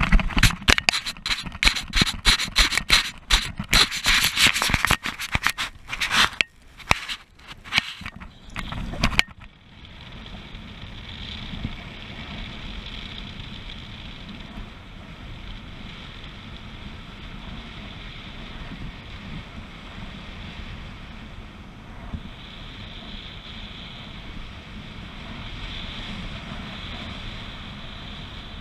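Rapid, loud scraping and rustling as the paraglider harness and camera brush through grass during the take-off run, stopping abruptly about nine seconds in. After that comes steady wind noise on the harness-mounted camera as the paraglider flies.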